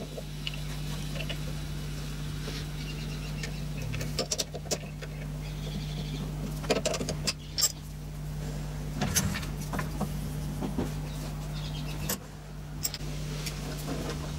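Four-jaw lathe chuck being adjusted by hand with a chuck key: scattered metal clicks and knocks as the jaws are tightened and the workpiece is set true, over a steady low hum.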